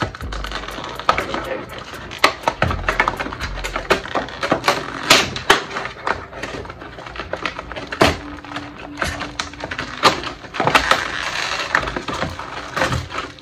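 Clear plastic blister packaging being pulled and pried apart by hand, crinkling and crackling with many irregular sharp clicks and a few louder snaps.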